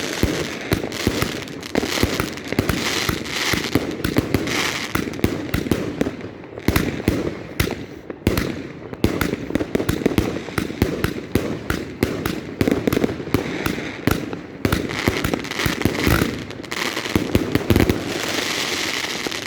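Fireworks going off: a dense, continuous string of bangs and crackles, several every second, with a brief lull about eight seconds in.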